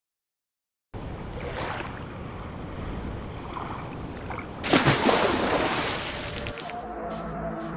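Ocean surf and waves sound effect as a steady rushing wash, with a louder splash of water about five seconds in that fades out over a second or so.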